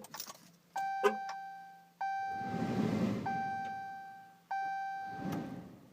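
Ram 1500 EcoDiesel dashboard warning chime dinging four times, about one ding every 1.25 s, each one ringing out. A swelling rushing noise sits under the second and fourth dings. The chime comes during a start attempt on the truck, which does not start.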